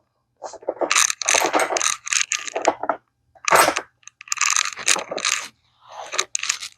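Socket ratchet wrench tightening a bolt, its pawl clicking rapidly on each back-swing, in several runs of clicks with short pauses between them.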